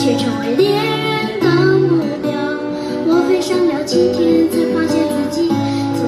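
A child singing a melody into a microphone, accompanied by strummed acoustic guitar and hand-played cajón, all heard through a stage PA.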